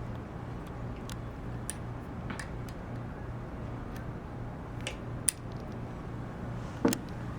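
Scattered clicks and clinks of tools and small metal parts being handled while an old bicycle suspension fork is taken apart. The loudest is a knock near the end, all over a steady low hum.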